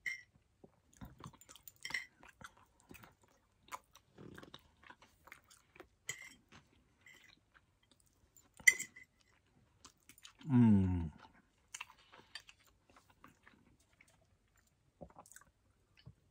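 Close-up chewing and eating sounds from a mouthful of rice and meat, with small irregular clicks of a fork on a plate and one sharp click about nine seconds in. About ten and a half seconds in comes a short vocal sound from the eater that falls in pitch.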